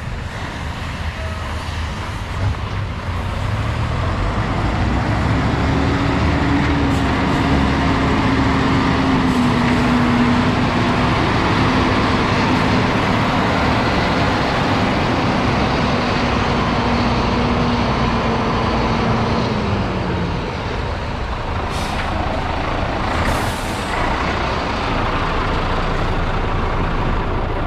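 MAN 19.343 truck's straight-six diesel engine running steadily, with a steady low tone that drops away about twenty seconds in. About twenty-three seconds in, the air brakes give a short hiss of released air.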